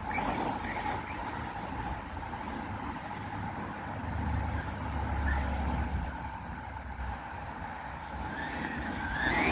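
Brushless-converted BEZGAR HM101 1:10 RC truck running at a distance, its motor whine rising near the end, over a steady outdoor noise with a low rumble that swells in the middle.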